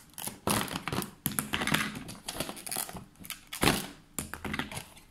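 Crinkling of a clear plastic zip bag and clicking of small plastic tubes and items inside it as they are handled: an irregular run of rustles and clicks, a sharper knock about three and a half seconds in.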